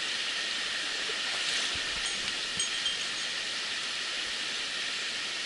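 Mountain stream water rushing steadily, with a couple of faint knocks about two to three seconds in.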